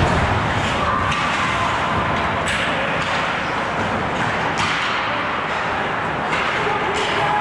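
Ice hockey play at rink level: skates carving and scraping the ice, with three sharp clacks of sticks and puck about two and a half, four and a half and seven seconds in.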